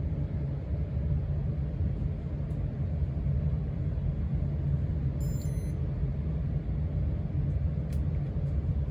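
1993 Casablanca Stealth ceiling fan running, a steady low rumble.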